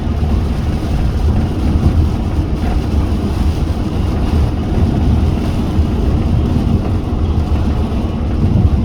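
Car driving at motorway speed: a steady low rumble of tyres and engine with no change through the stretch.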